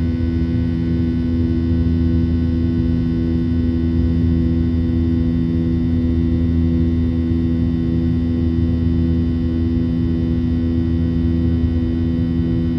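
Cabin sound of a Boeing 737-800's CFM56-7B turbofan engines at climb power: a steady drone with several held humming tones over a low rumble.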